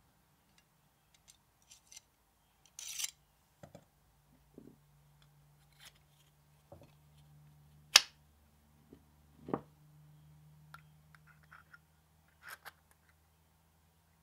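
Steel and hardwood knife parts clicking and knocking together as a stiletto's blade, steel crossguard, purple hardwood handle block and steel pommel are fitted by hand. There are scattered small clicks, a short scrape, and one sharp click near the middle followed by a duller knock, over a faint steady hum.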